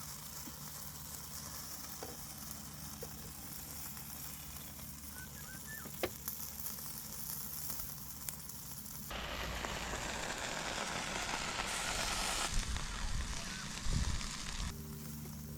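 River-mussel satay sizzling as it grills over a fire, a steady hiss that grows louder and fuller about nine seconds in, then drops back near the end.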